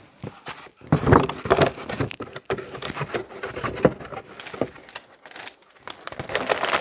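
Cardboard box and packaging being handled and moved on a table: a run of knocks, scrapes and rustles, loudest about a second in and again near the end.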